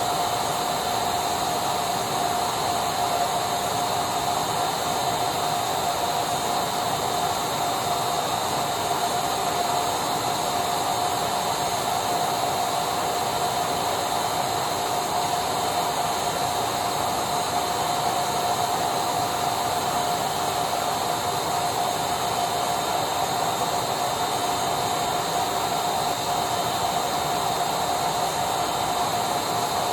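Vacuum cleaner running steadily: an even rush of air with a steady whine held at one pitch, never changing in level.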